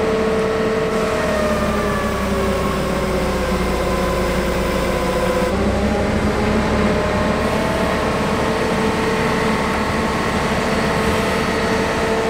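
Forklift engine running steadily while the mast hoists a car engine hanging from straps. Its pitch drifts slowly down over the first few seconds, shifts about halfway through, then holds steady.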